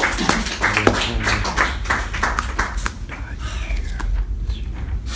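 Sheets of paper being shuffled and lifted from a stack, with irregular crackles and taps.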